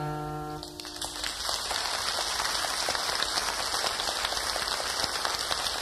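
The last held notes of the song fade out during the first second, then an audience applauds steadily.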